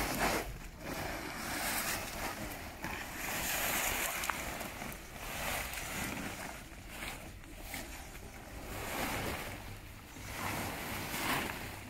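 Large muddy plastic tarpaulins rustling and crinkling as they are dragged up and bundled by hand, in repeated swells of noise.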